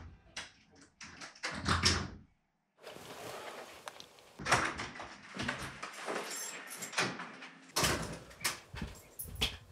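A series of clicks, knocks and rustles, typical of a front door being unlocked and opened, with the loudest clicks near the end and a brief total silence about two seconds in.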